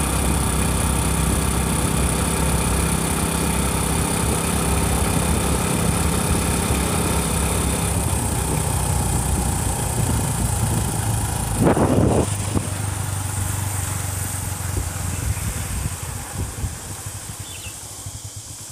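Motorcycle engine running steadily while the bike is ridden along the road, with road and wind noise. A brief louder burst of noise comes about twelve seconds in, and the sound dies down over the last few seconds as the bike slows.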